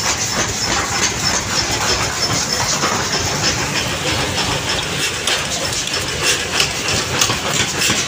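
Steady mechanical din of a running power press, with light rattling clicks that come thicker in the second half.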